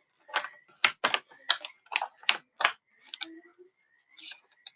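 Sharp plastic clicks and snaps, about half a dozen in quick, uneven succession and then fewer, as the plastic bottom cover of an Asus TUF Gaming F15 laptop is pried at along its edge.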